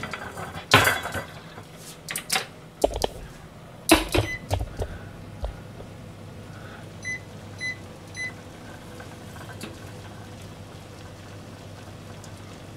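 Metal pots and pans clattering and knocking a few times. About seven seconds in, an electric cooktop's control panel beeps three times as its buttons are pressed, over a steady low hum.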